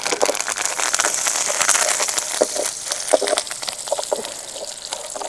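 Fresh curry leaves sizzling in hot oil with frying dals, mustard and cumin seeds, the tempering for a chutney, with scattered crackles. The sizzle is loudest as the leaves go in and eases off over the next few seconds.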